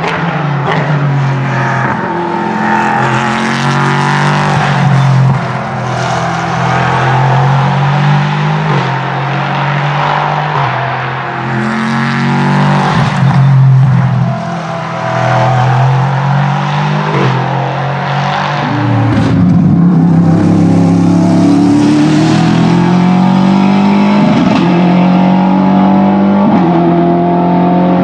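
Ligier JS P3 race car's 5.0-litre Nissan VK50 V8 at hard acceleration, its pitch climbing and then dropping sharply at each upshift. The pitch falls away about two-thirds through, then climbs up through the gears again near the end.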